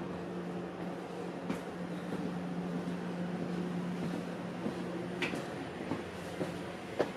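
Cabin ride noise of a Chemins de fer du Jura metre-gauge train: a steady hum with a held low tone, broken by a few sharp clicks and knocks that come closer together near the end.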